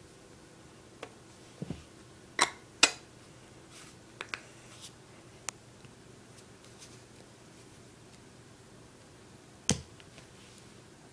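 Plastic makeup compact and cases being handled, giving scattered sharp clicks and knocks: two loud ones close together about two and a half seconds in, a few lighter ticks after, and one more loud knock near the end.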